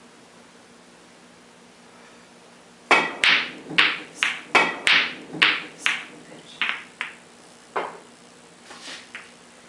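A pool cue strikes the cue ball about three seconds in, followed by a quick run of sharp clacks as pool balls collide with each other, about a dozen over some five seconds, growing fainter, with a few faint knocks near the end.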